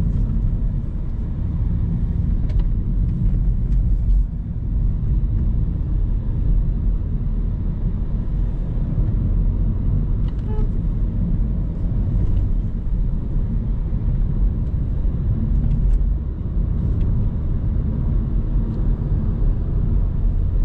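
Renault Megane 4 on the move, a steady low rumble of engine and road noise.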